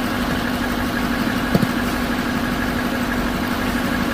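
Truck engine running steadily with an even hum, with one short knock about a second and a half in.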